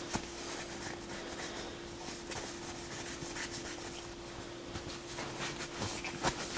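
Scrubbing with alcohol at the turntable's drive roller to rub off residue left by a melted rubber belt: a faint, steady rubbing with small scattered ticks.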